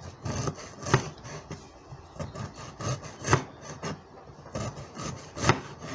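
Broad cleaver-style kitchen knife slicing through fresh ginger and knocking on the cutting board: an uneven run of sharp knocks, three of them louder, with scraping strokes between.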